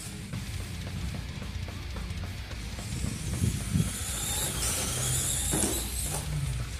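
Traxxas Stampede 4X4 radio-controlled truck running over rough ground, its electric motor whining briefly up in pitch near the end, mixed with background music.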